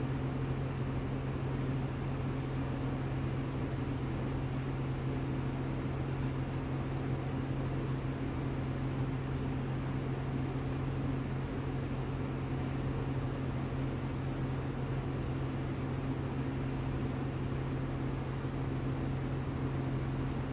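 A steady low mechanical hum with an even hiss over it, constant and unchanging.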